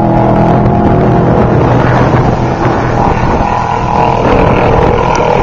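Off-road race vehicle's engine running loudly and close by, a rough, noisy engine sound.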